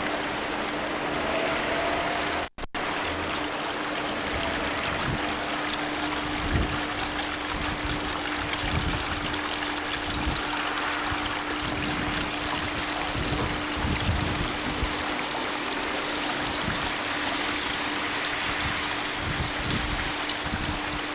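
Steady rushing of running water, with a constant hum underneath; the sound cuts out for a moment about two and a half seconds in.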